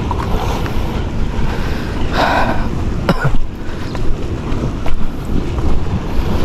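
Wind buffeting the camera microphone as a steady low rumble, with sea waves washing against the rock below. There is a short rush of noise about two seconds in, and a sharp click about a second later.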